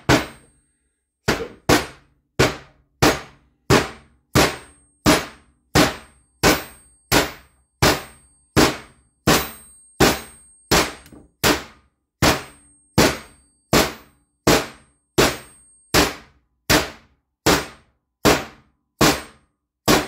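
Small mallet tapping a rear main oil seal into a small-block Chevy 350's aluminium rear seal retainer: a steady run of sharp knocks, about three every two seconds, each ringing briefly. The blows are light and even, driving the seal in evenly all the way around.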